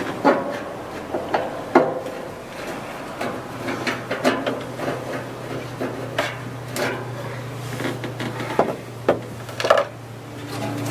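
Irregular knocks, creaks and scraping as an old furnace unit and its metal flashing are pried and worked loose from the van wall by hand.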